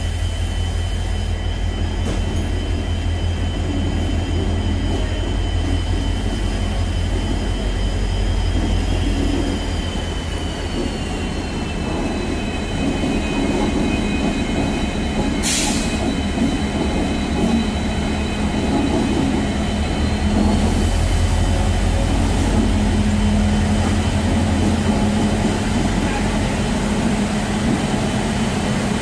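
A WAP-7 three-phase electric locomotive running slowly past: a steady low electrical hum with high whining tones that drop in pitch a little before the middle and climb back about two-thirds in. A short sharp hiss comes about halfway through, and the sound grows a little louder as the locomotive draws near.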